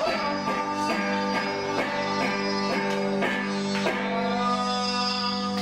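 Electric guitar strumming chords, about two strokes a second. About four seconds in, the playing stops on one chord that is left to ring.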